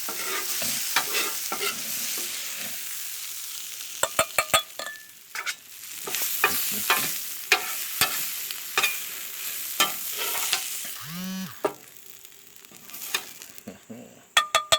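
Zucchini, mushrooms and onions sizzling on a Blackstone flat-top griddle while a metal spatula scrapes and clacks against the steel, scooping them off into a bowl. The sizzle dies down toward the end, and a few ringing metal clinks come just before it ends.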